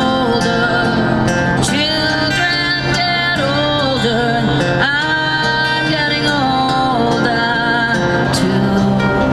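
Song with singing over acoustic guitar, bass and a drum beat.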